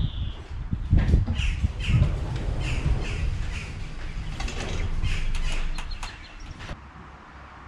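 A bird giving short calls in quick runs, over low rumbling outdoor noise that drops away about six and a half seconds in.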